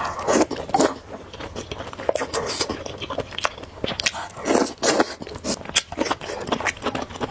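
Close-up eating of noodles: chewing and slurping, an irregular run of short wet smacks and clicks.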